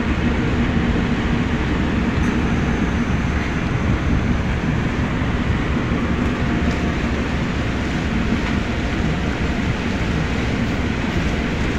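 Tugboat's diesel engine running with a steady, heavy rumble, with water churning against the hull. A faint steady hum sits over it in the first two seconds.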